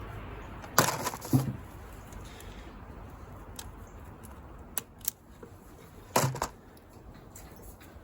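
Sharp clicks and clacks of hand tools on the wiring of a bulldozer's key switch. They come in two short clusters, about a second in and again about six seconds in, with a couple of faint ticks between.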